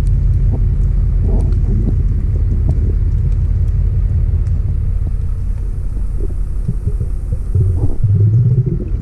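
Steady low rumble heard through a submerged camera underwater, with faint scattered clicks, growing a little louder about eight seconds in.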